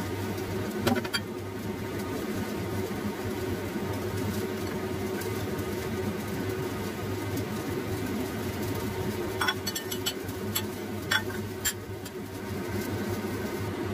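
Pot of soup boiling on a stovetop, with a steady low hum running under it. A few sharp clicks come about a second in and again in a cluster around ten to twelve seconds.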